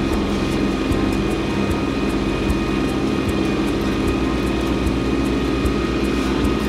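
Kubota B2601 compact tractor's three-cylinder diesel engine running steadily under load as it pulls a landscape rake through snow over gravel.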